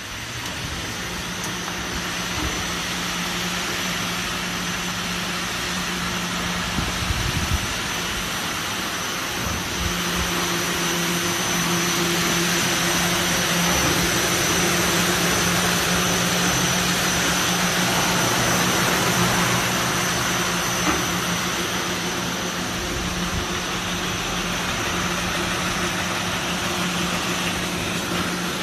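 Industrial brush sanding machine for cabinet doors starting up and then running steadily: a motor hum, a thin high whine and a broad hiss from the spinning sanding brushes.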